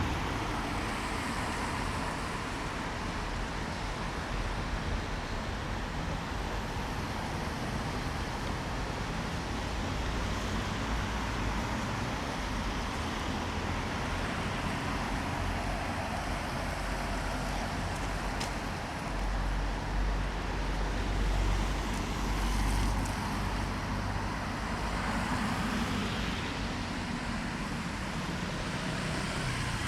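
Rainy city street ambience: a steady wash of traffic and wet-road noise, with a heavier vehicle passing with a low rumble about twenty seconds in.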